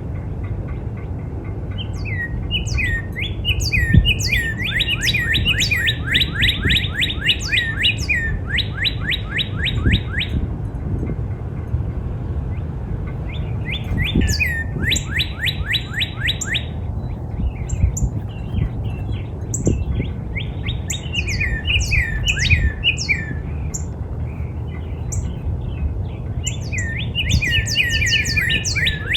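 Northern cardinal singing: four phrases of repeated down-slurred whistles, the notes coming faster within each phrase, with short pauses between phrases. A steady low rumble runs underneath.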